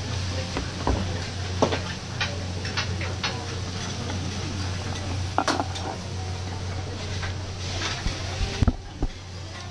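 Metal cooking utensils clinking and scraping now and then on a steel teppanyaki griddle, a scattered series of sharp clinks, over a steady low hum and busy restaurant background. A few low thumps come near the end.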